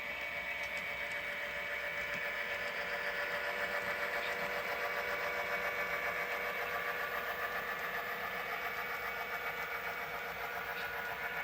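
Model train locomotive running along the layout: a steady mechanical hum with a fast, even pulsing, swelling slightly in the middle.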